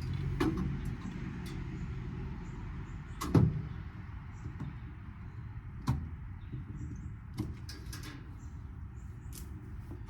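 Scattered knocks and clanks from dismantling a large air-conditioning unit for scrap, the loudest about three and a half seconds in, over a steady low hum.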